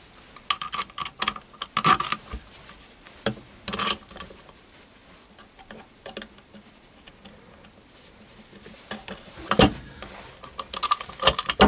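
Small metal parts clinking and knocking as bolts, clamps and brass bushes are handled and fitted on a converted Myford ML7 cross-slide milling pallet. Scattered light clinks come first, then a quieter stretch, then louder knocks near the end as the pallet is moved.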